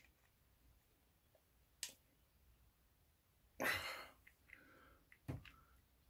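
Screwdriver turning the worm screw of a jubilee clip on a rubber propane hose, giving a few faint sharp clicks, with a louder short rush of noise a little past halfway.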